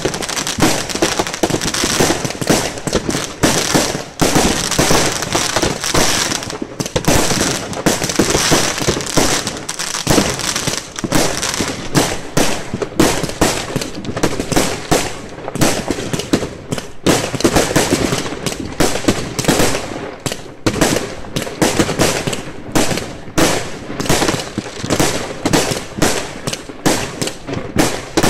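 Fireworks going off in a rapid, unbroken run of bangs, pops and crackles as shells launch and burst overhead.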